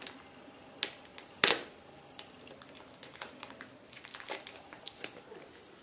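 Clear packing tape crinkling as it is pressed and smoothed around the plastic cases of a pair of UPS batteries, with a few sharp clicks, the loudest about a second and a half in.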